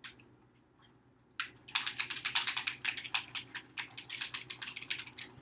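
Xbox controller being clicked rapidly, a quick run of many short plastic clicks starting about a second and a half in.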